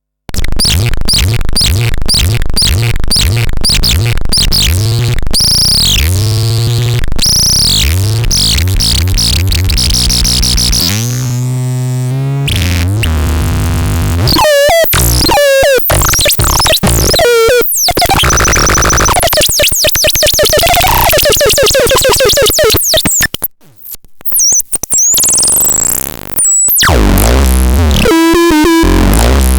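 Synthesized electronic sounds from the LARPEL C 15, running through a string of effects: rapid pulses, sweeping glides up and down, warbling tones and beeping patterns, with a few short gaps about two-thirds in.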